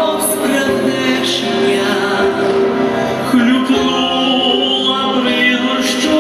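Vocal duet song: long held sung notes over instrumental backing.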